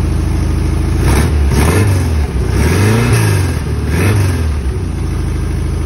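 Porsche 914 engine shortly after a cold start, idling, then revved in a quick series of five or six blips, its pitch rising and falling with each, before settling back to a steady idle.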